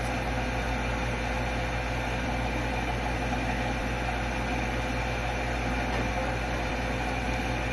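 Steady background hum and hiss with a faint held tone, with no distinct events.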